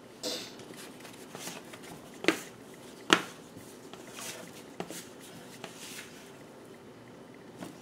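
Kitchen handling noises on a stone countertop: two sharp knocks a little over two and three seconds in as things are set down, and short scuffs as a plastic bench scraper slides along the counter under a lump of bread dough.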